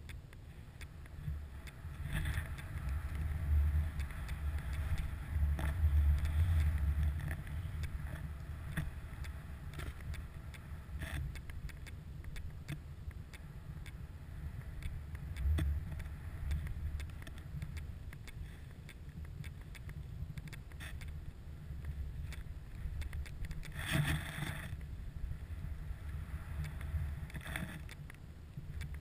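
Snowboard riding through deep powder snow: a steady, muffled low rumble of wind on the microphone with a hiss of board and spraying snow, swelling in the first few seconds and with a short, louder burst of hiss about 24 seconds in.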